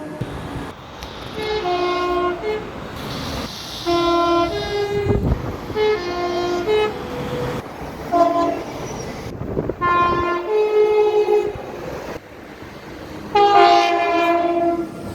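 Multi-tone train horn sounded in a series of about six short chord blasts, several notes at once, over the running noise of a train.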